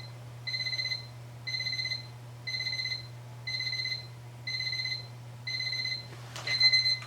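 Electronic alarm clock beeping: high beeps about once a second, each about half a second long and made of a quick trill of pulses, over a low steady hum. Some rustling comes in near the end.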